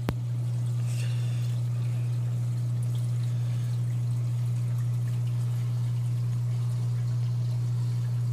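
Reef aquarium running: water trickling and pouring over a steady low hum from its pumps, with one brief click near the start.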